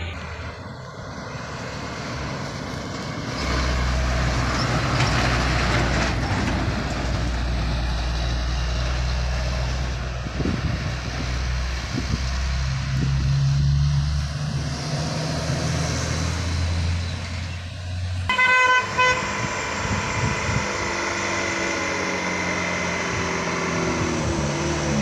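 Diesel engines of trucks loaded with sugarcane labouring at full throttle up a steep hairpin bend, a steady low drone. About 18 seconds in, a truck's horn sounds: a quick run of toots, then a longer held note over the engines.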